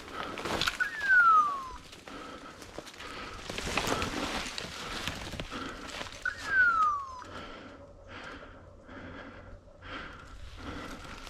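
Hunting dog's beeper collar in point mode, giving a falling hawk-like screech twice, about six seconds apart, with a run of short beeps between them. Rustling and footsteps through undergrowth can be heard underneath.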